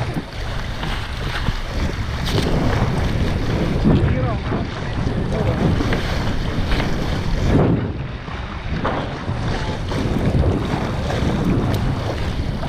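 Wind buffeting a small action-camera microphone on a sailing boat, with water rushing and splashing along the hull. The noise swells and eases every second or two.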